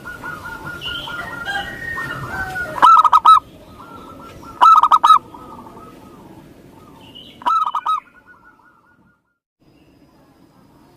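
Local zebra dove (perkutut) cooing: three short, loud, rapidly trilled coo phrases a couple of seconds apart, over a fainter steady background of bird sound that fades out near the end.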